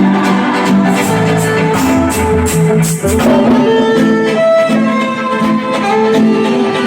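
Recorded music played loud over a party sound system: a melody with string-like tones over a steady beat.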